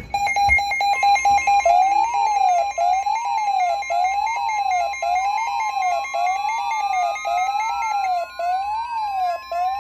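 Weather radio alert for a severe thunderstorm warning: rapid electronic beeping at the start, then a steady high alert tone from about a second in, under a repeating rising-and-falling siren-like wail about once a second. A second tone glides slowly upward through the second half.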